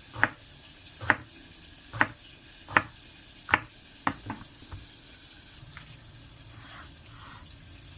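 Knife slicing through patola (sponge gourd) onto a cutting board: about eight sharp cuts, roughly one a second, stopping about five seconds in, over a steady hiss.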